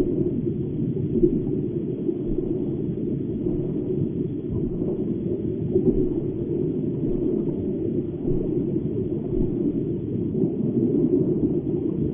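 Steady low rumble of a running aquarium with water noise, even and unbroken with no clear rhythm.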